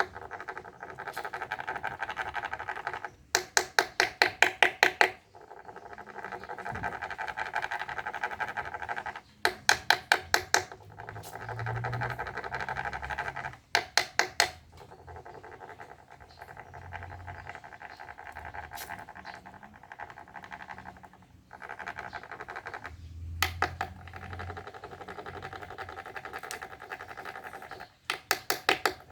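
Male cricket chirping in repeated bursts of about eight to ten sharp pulses every few seconds, over a steady trilling hum.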